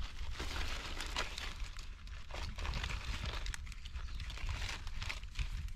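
Dry forest leaf litter rustling and crackling, with many small, irregular crackles.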